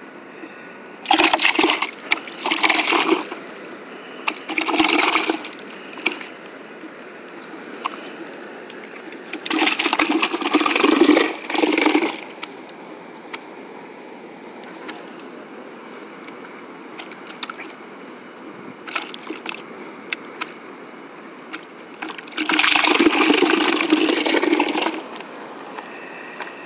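Freshly caught akule (bigeye scad) flapping and splashing in a bucket of water, in several bursts of one to three seconds each, separated by quieter stretches.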